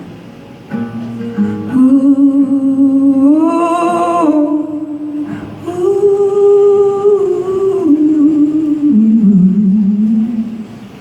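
Live rock music: wordless singing in long held notes that step up and down in pitch, phrase by phrase, over a soft guitar. The singing fades near the end, before the sung lyrics come in.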